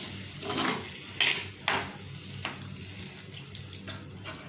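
A spoon stirring and scraping in a clay pot of frying shallots as thick tamarind water is poured in, with several short scrapes over a soft sizzle.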